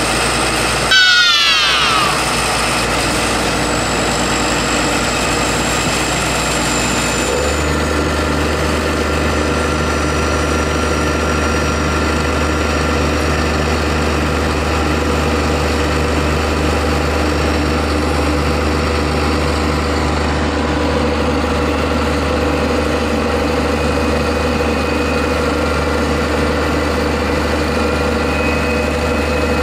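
Diesel tractor engine running at a steady speed. About a second in there is a brief loud squeal that falls in pitch, and around seven seconds in the low engine note shifts, then holds steady.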